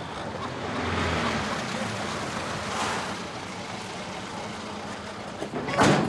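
Steady vehicle noise, with a louder short whoosh of a vehicle passing near the end.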